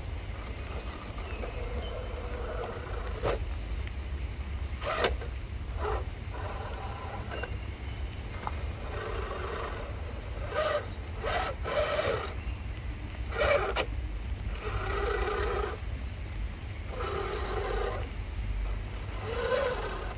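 Vanquish VS4-10 Pro 1/10-scale RC rock crawler's electric motor and drivetrain whining in a string of short throttle bursts, each about a second long, as it crawls over wooden planks. There are a few sharp knocks of tyres and chassis on the wood before the whines begin, and a steady low rumble underneath.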